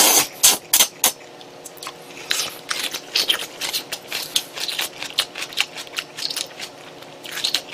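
A man slurping a mouthful of jjamppong noodles in the first second, then chewing them close to the microphone, a run of short irregular smacks and clicks.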